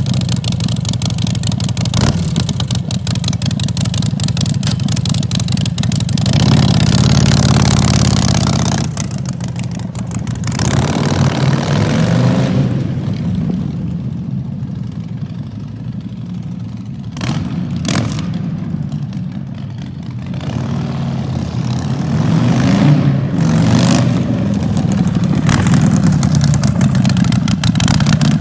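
Harley-Davidson Sportster Forty-Eight's V-twin running through a custom 2-inch stainless-steel short-shot exhaust, idling and revved hardest about six to nine seconds in. It then pulls away so the sound grows fainter, and grows louder again near the end as the bike comes back.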